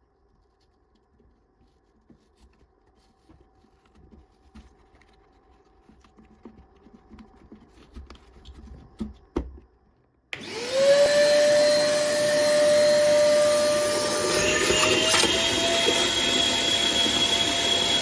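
Parkside PWD 12 B1 wet and dry vacuum: faint plastic clicks and rustles as its foam filter and motor head are fitted, then the motor switched on about ten seconds in. Its whine rises fast to a steady pitch and runs on, stepping slightly higher a few seconds later.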